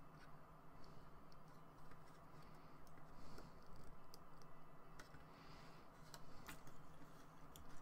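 Faint, scattered clicks and taps of hard plastic model-kit parts being handled and pressed together, about a dozen at irregular intervals, with a few soft rustles between them.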